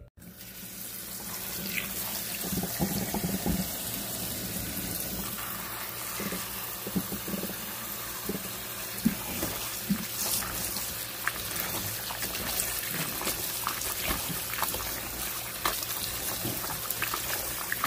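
Tap water pouring into a bowl of cut, salted napa cabbage to rinse off the brine, with splashes as a hand turns the leaves under the stream. The flow starts right at the beginning and builds over the first couple of seconds, then runs steadily.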